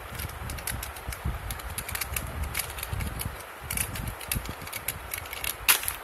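Plastic fidget toys, including spiky sensory balls, clicking and rattling irregularly as they are handled and rummaged in a plastic storage box, with a sharper knock near the end.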